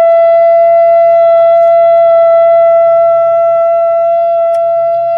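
A shofar blown in one long, steady, loud note held at a single pitch, easing slightly in the second half.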